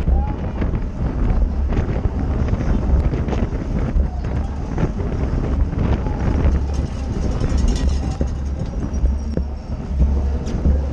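Wind buffeting a racing bicycle's onboard camera microphone at race speed, a heavy steady rumble with scattered rattles and clicks from the bike and road.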